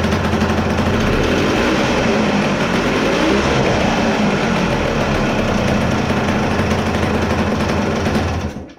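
1974 Yamaha DT250A's single-cylinder two-stroke engine running and idling after being kick-started, its pitch rising and falling slightly around halfway. The sound cuts off suddenly near the end.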